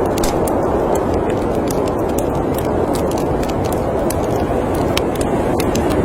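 Steady rushing of storm wind, with a wood fire crackling in scattered sharp pops over it.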